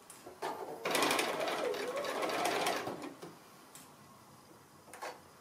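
Bernina sewing machine stitching through layers of cotton fabric in short runs as it is guided slowly around a curve: a brief burst about half a second in, then about two seconds of steady stitching that stops.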